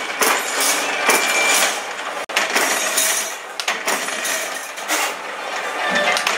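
Mechanical power press punching spatula blanks out of a steel sheet: repeated metallic strikes of the die over steady workshop machine noise, with a brief break a little over two seconds in.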